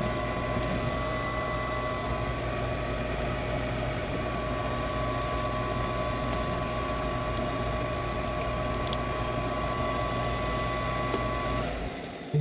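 Furnace draft inducer motor running with a steady hum and whine, pulling draft on the pressure switch. It cuts off near the end, followed by a single sharp click.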